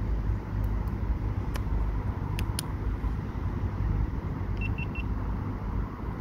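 Urban street ambience: a steady low rumble of road traffic, with a few sharp clicks in the first half and three quick high-pitched beeps near the end.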